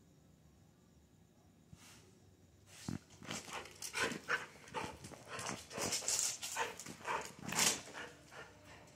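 A dog vocalising in a quick run of short, loud sounds that starts about three seconds in and lasts to near the end.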